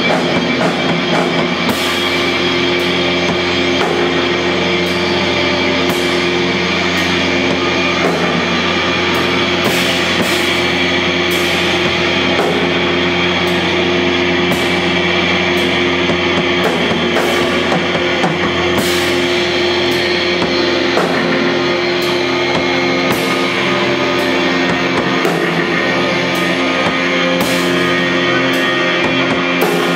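Live music from electronics and an acoustic drum kit: a dense, loud drone of held tones with drum and cymbal hits falling irregularly through it, without a break.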